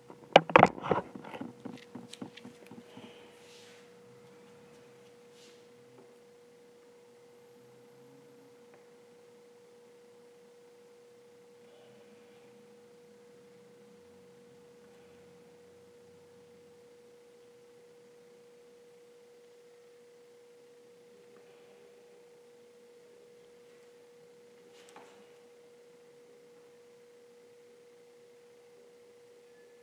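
A steady, pure hum at a single pitch throughout, with a burst of knocks and clatter in the first few seconds and a few faint taps later.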